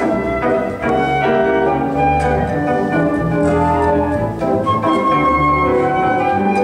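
Small jazz combo playing: flute carrying the melody in held notes over piano, upright bass and electric guitar.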